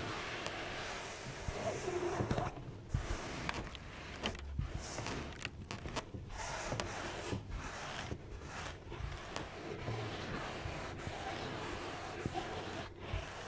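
Close-up rubbing and scraping, with scattered short sharp clicks, of the kind made in a chiropractic-adjustment ASMR roleplay.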